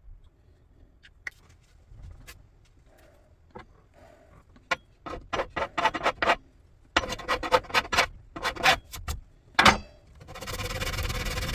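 Rubbing and scraping strokes on a ski's base during a base repair: a few scattered scrapes at first, then a fast run of strokes from about halfway through. Near the end a steady rushing noise sets in.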